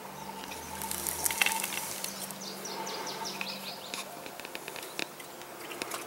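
River otters hidden in a rock den chirping and squeaking: quick runs of short, high, falling squeaks, then a string of sharp clicks near the end.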